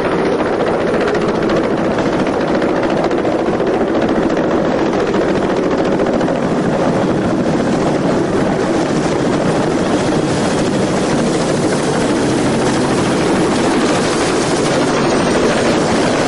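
CH-46 Sea Knight tandem-rotor helicopter flying close by, a loud steady rotor and turbine noise with a fast, even blade chop.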